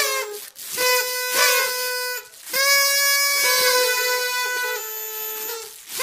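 Party trumpets blown in long, steady held notes: one stops just after the start, another lasts about a second and a half, and a third holds for about three seconds, with short breaks between them.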